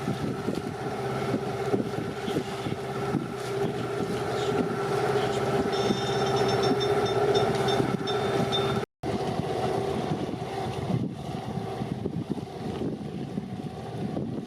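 A boat's motor running steadily with wind on the microphone. The sound drops out for a moment about nine seconds in, then goes on a little quieter.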